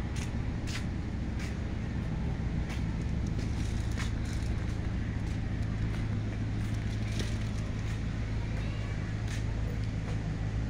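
Night-time city street ambience: a steady low engine-like hum with scattered sharp ticks at uneven intervals.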